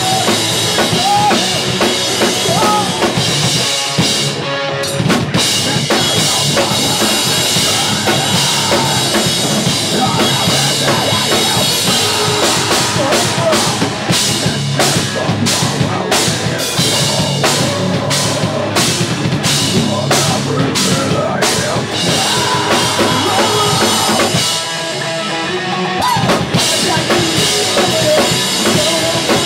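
Pop punk band playing live, with a loud full drum kit, electric guitars and bass guitar. The bass and drums drop out briefly about five seconds in and again near the end.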